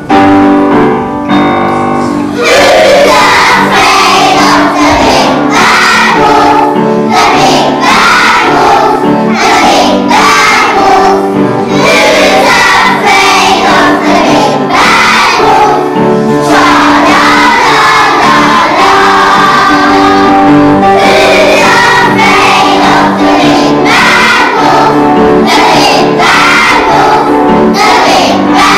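Young children's choir singing together over a piano accompaniment. The piano plays alone at first, and the voices come in about two and a half seconds in.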